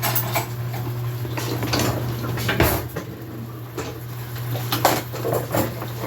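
Kitchen utensils and dishes clattering and clinking, an irregular run of short knocks, as someone rummages for a utensil. A steady low hum runs underneath.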